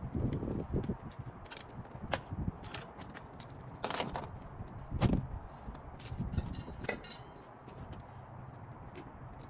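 Irregular clicks, clinks and knocks of hand tools and metal fasteners being handled while the front bumper is unbolted, with a few louder knocks about half a second, four, five and seven seconds in.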